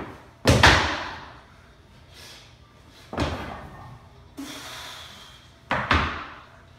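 Loaded barbell knocking against a power rack's hooks as a lifter sets up under it. There is a loud clank with a ringing tail about half a second in, another about three seconds in, and a quick double clank near the end.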